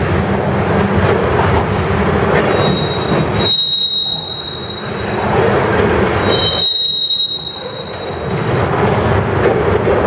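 Freight train of covered grain hopper cars rolling past on the rails, the end of the train clearing, with a steady rumble of wheels on track. A high, thin wheel squeal comes in twice, from about two and a half seconds in and again around the seventh second.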